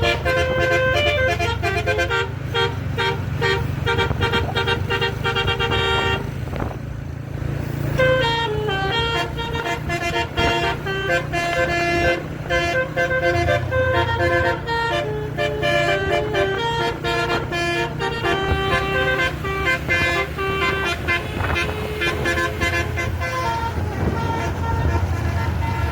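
Bus 'basuri' telolet horn, a set of air horns sounding a fast melody of changing notes, over the low rumble of the bus engine running. The melody pauses briefly about six seconds in, then starts again.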